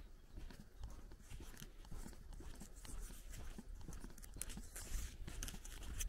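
Footsteps of a person walking on a sandy dirt road, a series of soft crunching steps over a low rumble.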